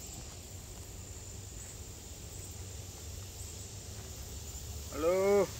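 Garden insects buzzing steadily in a high, even tone over a low rumble. Near the end a short, loud, rising-and-falling human voice.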